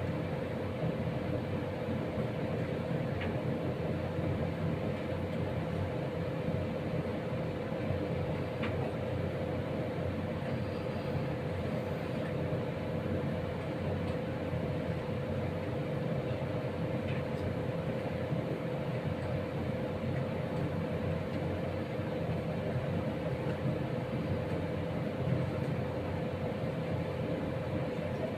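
Steady, unchanging hum with one constant tone over a low rumbling noise, with a few faint clicks.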